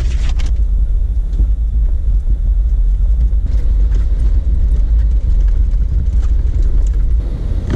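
Jeep Wrangler JK driving slowly along a rough dirt trail, heard from inside the cabin: a steady low rumble of engine and tyres, with a few faint knocks.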